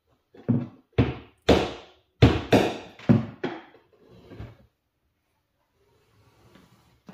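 Heavy mallet striking the end of a screwdriver about eight times in quick succession, driving a jammed ball bearing out of a stripped plastic transmission gear by cracking the gear.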